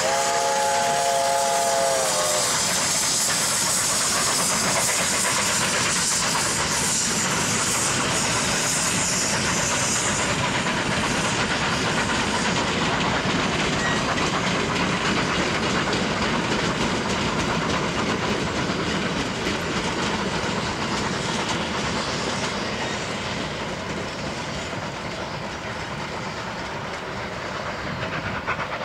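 Narrow-gauge steam locomotive working as the mid-train helper on a 4 percent grade: it sounds one long chime whistle of several tones, which ends about two seconds in. A loud steam hiss follows for several seconds as it passes, then the steady rumble of the freight cars rolling over the rails, slowly fading toward the end.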